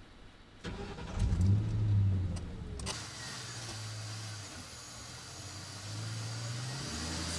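Hyundai Accent hatchback's engine starting about a second in and then idling steadily. A sharp click sounds near three seconds, followed by a steady hiss.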